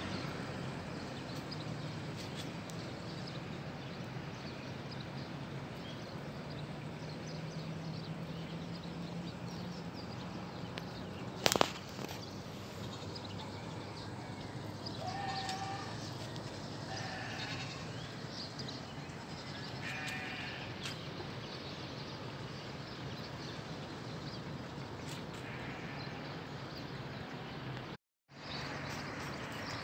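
Outdoor ambience over a town: a steady low hum and background noise, with one sharp loud crack about eleven seconds in and a few short pitched calls in the middle. The sound cuts out briefly near the end.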